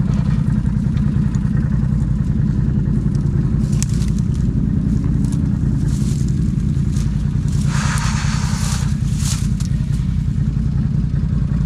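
Off-road vehicle engine running at a steady pace while riding. About eight seconds in there is a brief rush of noise lasting about a second.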